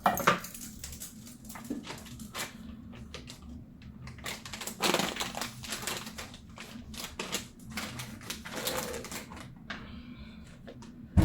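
Irregular light clicks and knocks from handling the parts of a siphon coffee maker, busiest about five seconds in.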